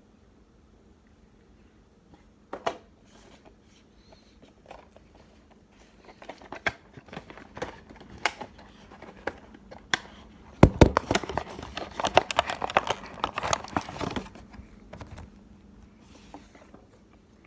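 Handling of an AirPods charging case and its packaging: scattered sharp clicks and knocks, then a dense run of crinkling and clicking about eleven to fourteen seconds in.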